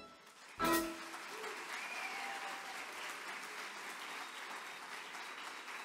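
A short closing chord from the piano and band ends the song, then the audience breaks into steady applause.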